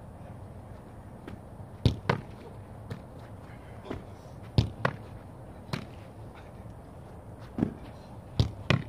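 Scattered sharp thuds and slaps from a goalkeeping drill: a football being caught in goalkeeper gloves and bounced, and boots landing on artificial turf. About eight impacts come unevenly, several in quick pairs.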